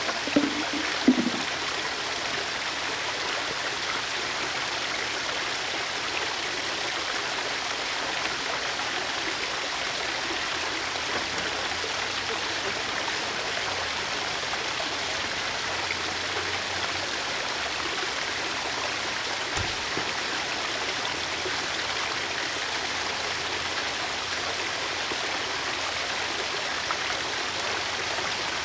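Backyard garden waterfall running, a steady rush and splash of falling water. Two brief pops sound in the first second or so.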